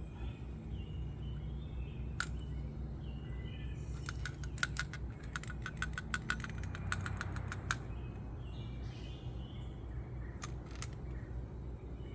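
Sharp metallic clicks from hand tools and bolt hardware: a single click about two seconds in, a quick run of clicks at about five a second for nearly four seconds, then two more clicks near the end. Birds chirp faintly in the background.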